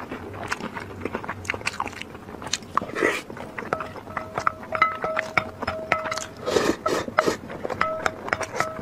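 Close-miked eating: many sharp wet mouth clicks and chewing sounds. About four seconds in, a high, steady whine starts, coming and going in short stretches.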